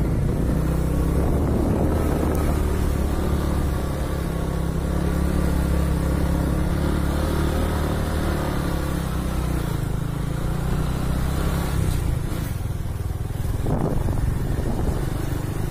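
Motorcycle engine running steadily as the bike rides along a narrow lane. Its engine note drops away about twelve seconds in.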